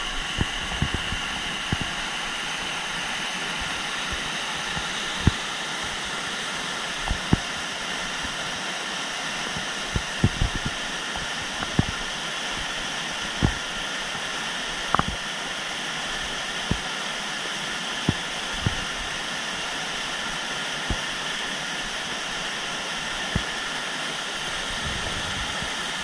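Steady rushing of a waterfall, broken by irregular low thumps on the microphone, about one every second or two.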